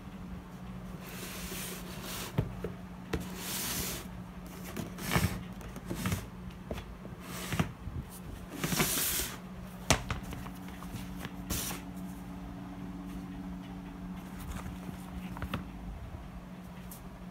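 Rustling and soft knocks from a hand handling a pair of sneakers, in irregular bursts over roughly the first twelve seconds, over a steady low hum.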